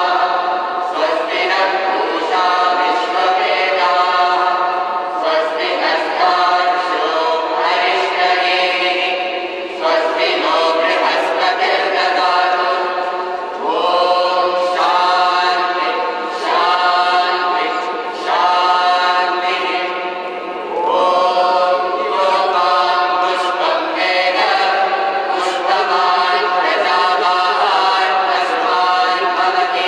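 A group of voices chanting in unison, without instruments, in sung phrases of long held notes a few seconds each with short breaks between them.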